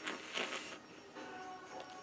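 Soft background music with steady sustained tones, and a brief rustling noise about half a second long at the start.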